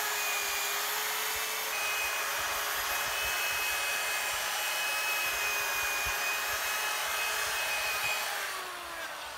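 Handheld electric rotary polisher running steadily with its pad buffing the boat's gel coat, a steady motor whine over the pad's rubbing. Near the end it is switched off and winds down, its pitch falling.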